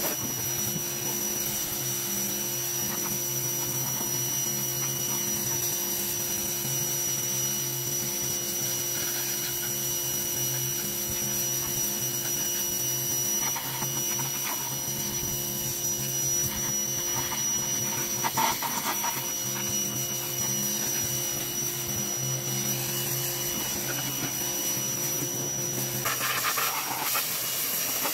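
Greenworks pressure washer running steadily, a constant motor-and-pump whine over the hiss of the water jet spraying the pickup's wheel and body. The sound changes abruptly near the end.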